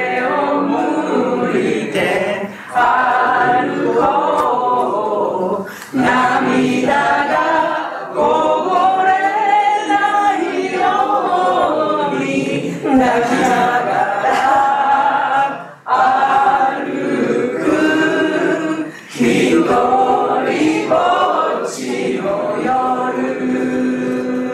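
A group of people singing a Japanese song together in unison, in phrases of a few seconds with short pauses for breath between them.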